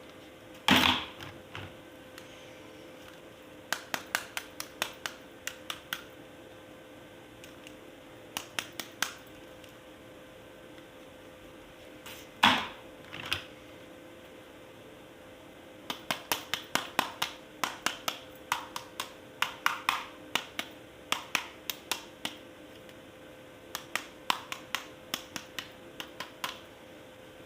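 Hard plastic clicking, in bursts of several quick clicks about three to four a second, with two louder knocks, one near the start and one about halfway. A faint steady hum runs underneath.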